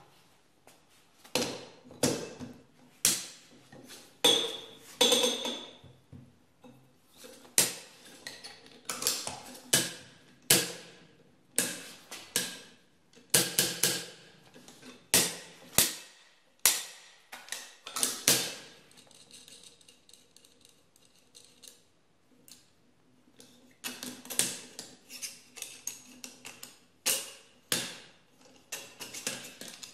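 Steel parts of a blacksmith's anvil tool being set down and fitted together on an anvil: a long run of separate metallic clinks and knocks, some ringing briefly, with a quieter stretch of lighter handling about two-thirds of the way through.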